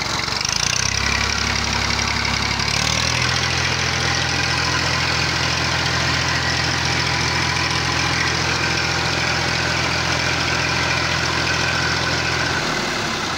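Massey Ferguson 240 tractor's three-cylinder diesel engine running. Its speed steps up twice in the first three seconds, holds steady, and drops back near the end.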